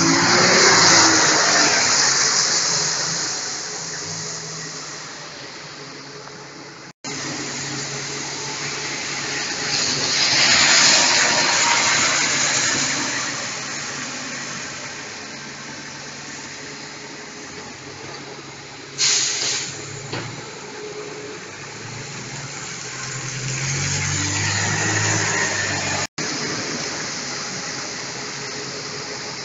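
Bus engine running with a steady hum under a hiss of tyres on a wet road that swells and fades several times as traffic passes. The sound drops out abruptly twice.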